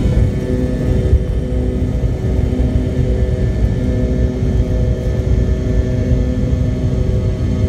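An MD-80's tail-mounted Pratt & Whitney JT8D turbofans running at takeoff thrust, heard from inside the rear cabin: a loud, steady sound with several steady hums over a deep rumble as the jet accelerates down the runway and lifts off.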